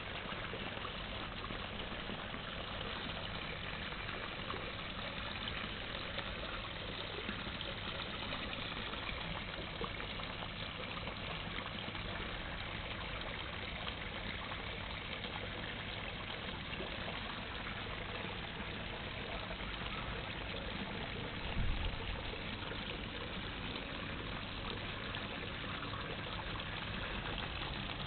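Steady trickle of running water over a low, steady hum, with one brief low bump about three-quarters of the way through.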